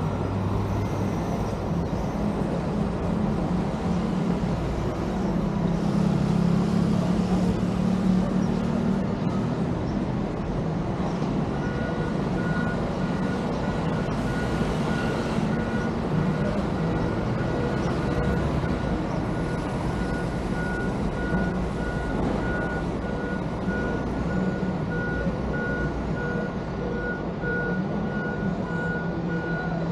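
A vehicle engine running steadily with road or traffic noise. From about ten seconds in, a repeating electronic beep sounds on and on at an even pace.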